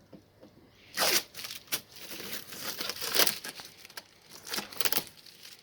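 Adhesive tape being pulled and torn off the car's rear window, in a series of ripping and crinkling bursts, the loudest rip about a second in.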